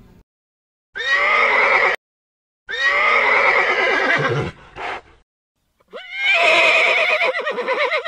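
A horse whinnying three times, each call a second or two long with a quavering pitch, separated by short silences.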